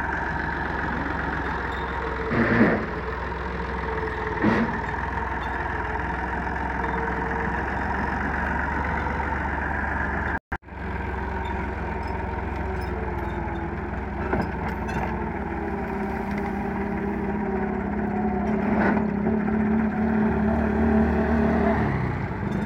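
Massey Ferguson 260 Turbo tractor's diesel engine running steadily as the tractor drives with a rotavator hitched behind. Two sharp knocks sound a few seconds in, and the engine gets louder near the end.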